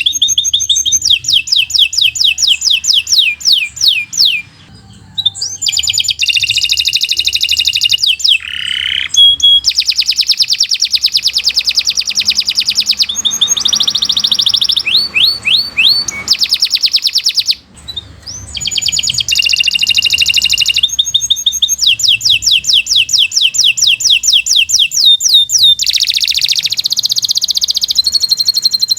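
Domestic canary singing long, fast trills of rapidly repeated high notes, switching from one trill pattern to the next every few seconds, with brief pauses about five seconds in and again a little past halfway.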